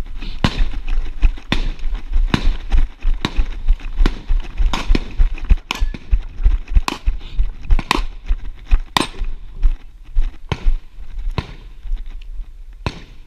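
Walking footsteps on a dirt range, with worn shooting gear and the body-worn camera knocking at each step, about one sharp knock a second and slowing near the end, over a steady low rumble.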